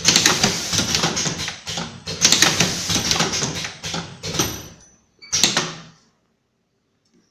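Vertical automatic cartoning machine running: rapid mechanical clatter full of sharp clicks. The clatter dies away about five seconds in, with one short burst just after, then it goes quiet.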